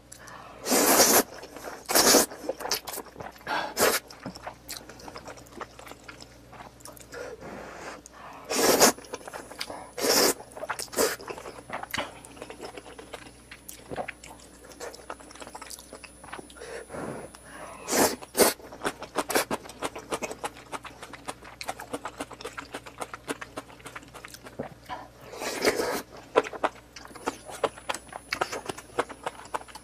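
Close-miked eating: loud bites about a dozen times, several in quick succession near the start, with steady chewing and small clicks in between.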